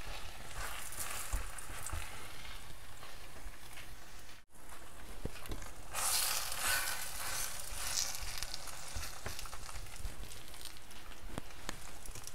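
Lebanese flatbread stuffed with minced meat and cheese frying in a little oil in a pan, a steady sizzle. It cuts out for an instant about four seconds in and is louder from about six seconds on.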